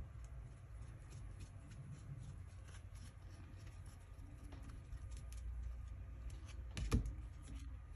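Microfibre cloth wiping over a phone's freshly fitted screen protector, with fingers pressing the screen: soft rubbing and many small ticks, and one louder knock about seven seconds in.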